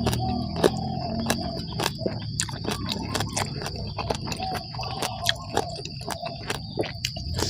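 Close-miked chewing and mouth smacking, an irregular run of quick wet clicks, while eating spicy chicken-feet salad with vegetables. A steady high insect drone runs underneath.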